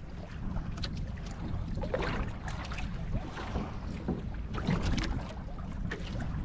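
Wind rumbling on the microphone over water sloshing and slapping against a small boat's hull in a choppy sea, with irregular splashy surges.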